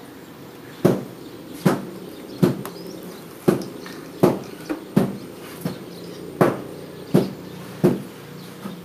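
Sharp knocks repeating at a steady pace, about one every three-quarters of a second, each ringing briefly.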